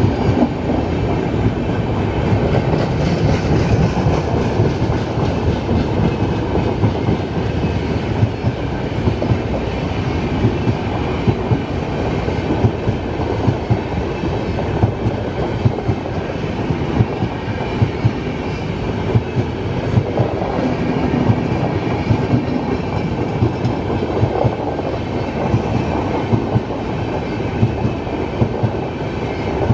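Indian Railways LHB passenger coaches rolling past close by: a continuous rumble of steel wheels on the rails, broken by frequent sharp clacks.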